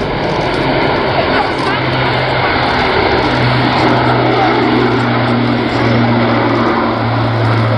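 Airbus A380 airliner on low final approach, its four jet engines making a steady rushing rumble with a low hum that grows louder from about three seconds in as the aircraft nears.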